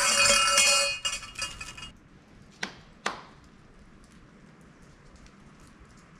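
Brass suzu shrine bells shaken by the bell rope, a loud jangling ring that stops about a second in and rattles away, then two sharp hand claps about half a second apart: the two claps of Shinto shrine worship.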